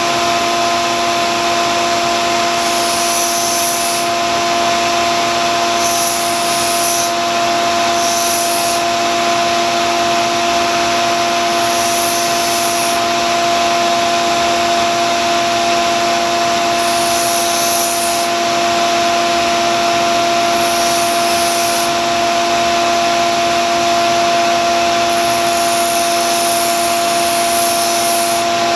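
A small narrow-belt grinder and a shop vacuum run with a steady whine. The steel blade of a vintage Wusthof kitchen knife is pressed to the new 120-grit belt in short passes every few seconds, each pass adding a hissing grind as the tip and edge profile are reset.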